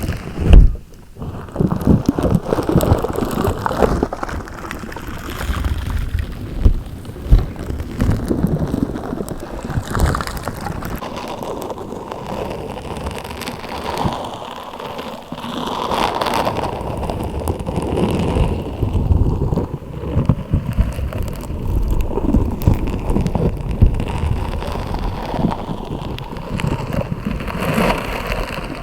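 Slime being squeezed and kneaded by hand, a continuous run of irregular wet crackles, pops and squelches, with one loud pop about half a second in.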